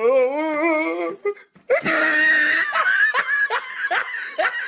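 Laughter: a drawn-out voice with a wavering pitch, then after a short pause a shrill burst and a run of short laughs, each rising in pitch, about two or three a second.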